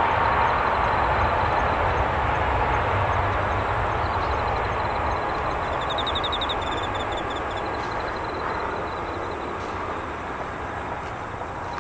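Boeing 777 twin jet engines rumbling and hissing as the airliner rolls out down the runway after landing, fading steadily as it moves away. Faint bird chirps about halfway through.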